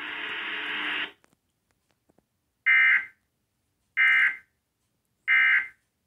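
Emergency Alert System end-of-message tones from a cable TV box: three identical short, buzzy digital data bursts about a second and a half apart, marking the end of the broadcast alert. The alert's audio cuts off about a second in, before the first burst.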